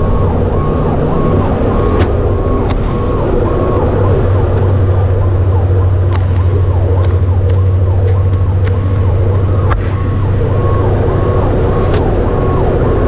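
Fire truck's electronic siren cycling up and down quickly and steadily, heard from inside the cab over the steady drone of the truck's engine, with a few sharp clicks.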